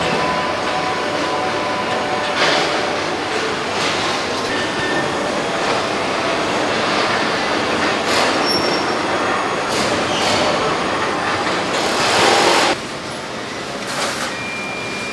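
Car assembly line factory noise: a steady machinery and conveyor din with faint steady tones, broken by short bursts of hissing. The loudest hiss comes about twelve seconds in and cuts off suddenly.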